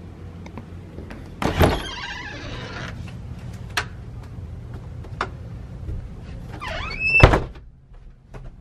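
An interior door being opened: a sharp clack with a brief rattle about a second and a half in, a few light clicks, then a short rising squeak and a loud thump a little after seven seconds, over a steady low hum.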